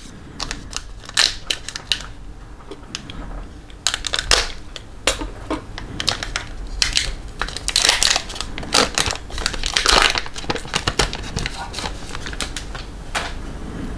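Wrapper of a hockey card pack crinkling and crumpling as it is opened and handled: a run of irregular crackles and rustles, busiest about halfway through.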